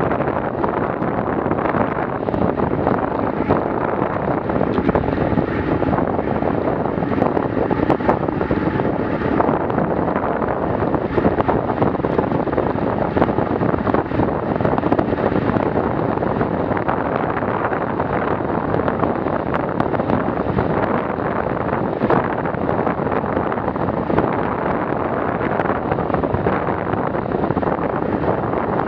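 Steady rush of wind over a bicycle-mounted action camera's microphone at about 35 km/h, mixed with tyre and road noise from the asphalt, with a few faint ticks from bumps.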